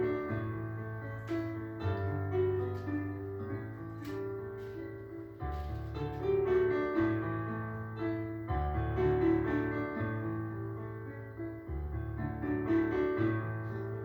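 Instrumental background music led by piano, with held bass notes changing every second or two under a melody.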